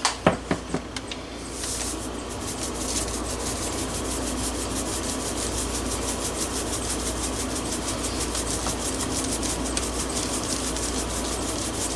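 Table salt pouring in a steady, granular hiss into a plastic zip-top bag of cold water to make a brine, after a few handling clicks at the start.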